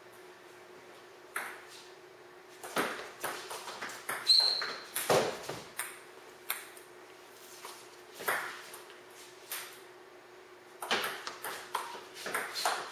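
Celluloid-style table tennis ball clicking off paddles and the table in short rallies, with single ticks between points and a quick run of rapid hits near the end. A brief high squeak sounds about four seconds in, over a faint steady hum.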